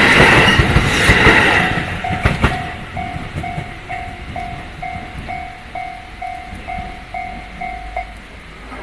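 A train passes over a level crossing, loud at first and fading away about two seconds in. Then the crossing's warning bell keeps dinging at an even beat, about twice a second, until it stops near the end.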